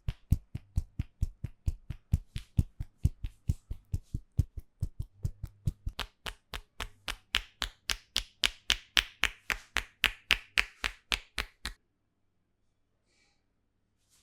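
A barber's hands slapping and tapping rapidly on a client's head during an Indian head massage, at a steady rhythm of about four strikes a second. The strikes turn sharper and brighter about halfway through, then stop near the end.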